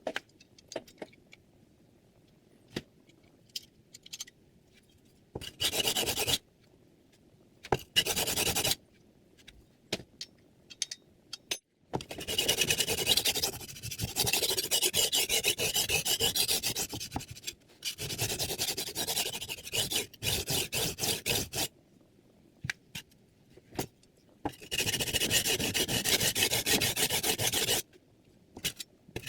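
Chef's knife blade being stroked over a diamond sharpening plate, a dry metal-on-diamond grating in bursts of back-and-forth passes, the longest run in the middle with short breaks. A few light clicks come before the first strokes.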